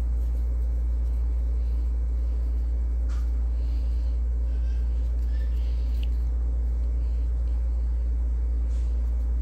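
A steady low rumble of background noise that holds at an even level, with no other clear sound.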